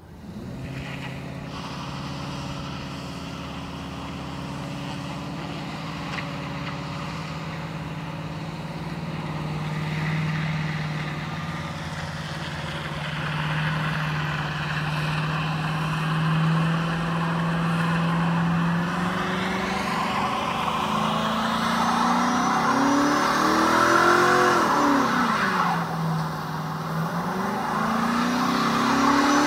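Pickup truck engine held at high, steady revs while the rear tyres spin in a smoky burnout, with a hiss of tyre spin underneath. In the last third the revs rise and fall several times and the sound grows louder.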